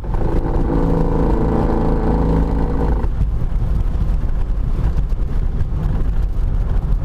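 BMW E36 325is on the move, with a loud, steady low rumble. Over it comes a pitched, droning rub for about three seconds, which then drops away. This is the rear differential, its mount bolt broken, lifting and rubbing against the body hard enough to burn the steel.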